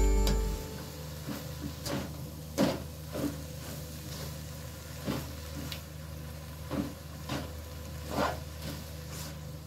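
Spatula stirring and tossing shredded cabbage in a nonstick wok: about a dozen irregular scrapes and knocks against the pan over a steady low hum.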